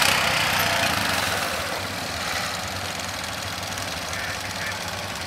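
Several quad bike engines idling and running at low speed as the bikes edge along in a line; louder for the first second or so, then steady.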